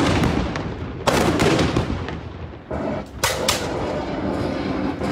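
USS Constitution's guns firing black-powder blank rounds in turn. There is a heavy report about a second in and three sharper reports in quick succession around three seconds, each trailing off into a rumbling echo.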